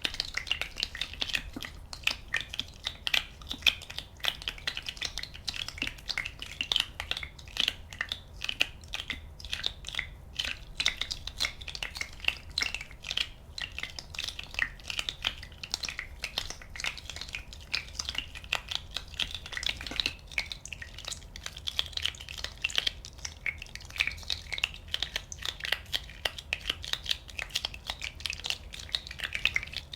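Many small bubbles popping in a dense, continuous crackle of tiny clicks.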